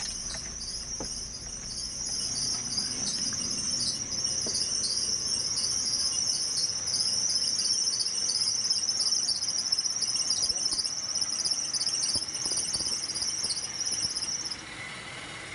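A chorus of night insects, crickets, making a steady, high, shimmering chirr that pulses slightly. It cuts off suddenly near the end.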